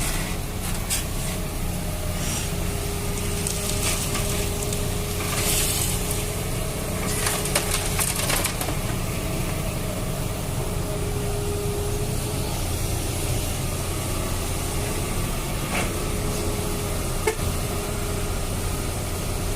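Toy excavator scooping sand into a toy dump truck: scraping and crunching of sand and plastic over a steady low hum with a faint thin motor whine, the scraping strongest about five to eight seconds in.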